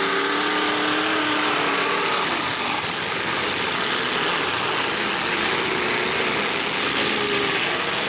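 Engines of several 1980s-model demolition derby cars running and revving together, their pitches rising and falling over a dense, steady wash of engine noise.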